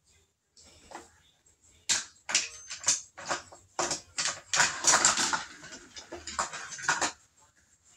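A toy rolling down a plastic spiral ramp tower, clattering and rattling. Quick clicks and knocks start about two seconds in and stop shortly before the end.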